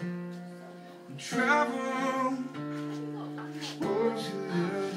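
A man singing to his own strummed acoustic guitar. A chord rings at the start, and his voice comes in after about a second. Midway a new chord is struck, and the singing comes back about a second later.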